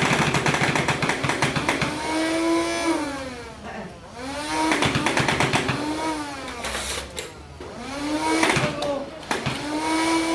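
Nerf Rival Perses motorised blaster firing fully automatic in about three bursts. Its battery-driven motor whines up in pitch at each burst and winds down after it, with rapid clicking as the rounds go out.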